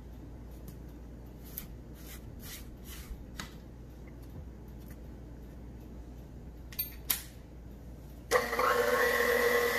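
KitchenAid stand mixer running, its beater working thick batter in a stainless steel bowl, with a few clicks as a silicone spatula scrapes and taps the bowl. About eight seconds in the motor gets much louder, with a steady whine.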